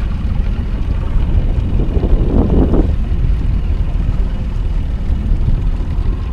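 Boat's outboard motor running at trolling speed, a steady low rumble, mixed with wind on the microphone.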